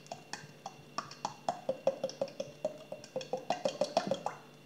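Olive oil glugging out of a plastic bottle as it is poured into a stainless-steel bowl: a steady run of hollow pops, about four to five a second, that stops shortly before the end.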